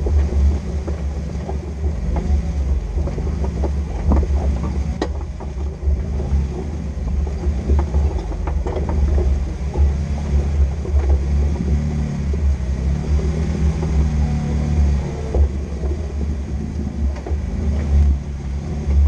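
Off-road vehicle's engine running with a steady low rumble while driving, with scattered knocks and rattles from the vehicle over rough ground.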